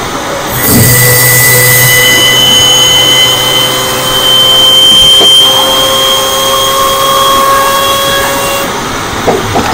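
Supercharged V6 of a 2016 Audi S4 with a stage 1 tune and aftermarket intake, heard from under the engine. About half a second in, the supercharger whine and intake rush come in suddenly and climb slowly in pitch as revs rise. The sound cuts off shortly before the end, followed by a few light knocks.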